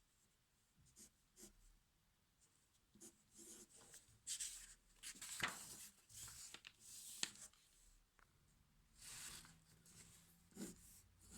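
Pen writing on paper: a run of faint, short scratching strokes, busiest in the middle, with a couple of sharp taps of the pen.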